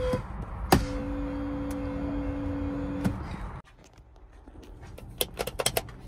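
A dying car horn: a short blip, then one low steady note held for a little over two seconds before it cuts off. Near the end comes a quick run of sharp clicks as a horn button is pressed repeatedly.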